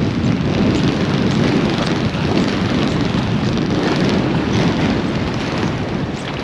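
Strong wind blowing across the microphone, a loud, steady rush, with choppy lake water washing against the stony bank.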